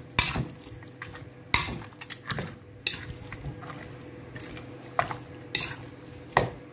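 A metal utensil stirring raw oxtail pieces through a wet seasoning marinade in a plastic bowl: irregular clacks and scrapes of the utensil against the bowl and meat, over a faint steady hum.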